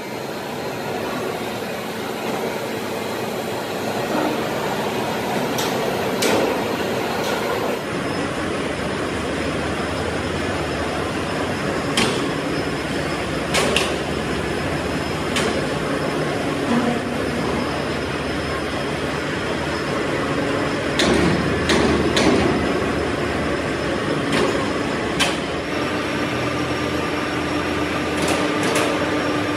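Steady din of running machine-shop machinery, broken by sharp metal clanks and knocks as a steel shaft hanging from an overhead crane is moved and set down into a machine's chuck. A steady hum comes in near the end.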